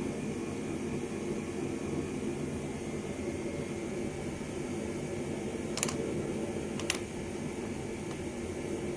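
Steady fan-like hum, with two short sharp clicks about a second apart just past the middle, as brake pad and caliper parts are handled.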